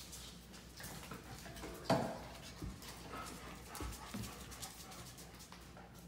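A dog and a monkey scuffling on a tile floor, with paws and claws clicking in a loose, uneven patter. There is one louder knock about two seconds in.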